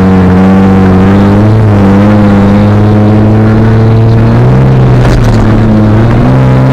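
Jeep TJ engine running under load from inside the cab, its pitch stepping up and down a few times as the throttle changes while climbing a snowy trail.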